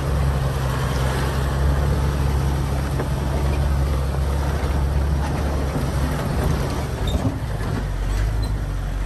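An open-sided Jeep's engine running at low speed as it crawls over a rocky trail, with rough-ground rattle and noise over the steady low hum. The engine note drops lower about seven seconds in.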